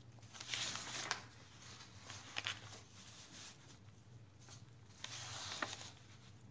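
Sheets of paper rustling as they are handled and leafed through, in three short bursts, over a faint steady low hum.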